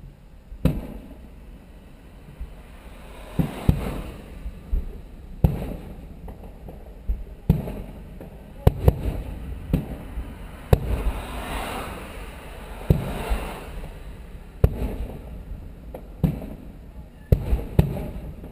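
Aerial fireworks shells bursting in the sky: about fifteen sharp bangs with echoing tails, some in quick pairs, and a spell of crackling about halfway through.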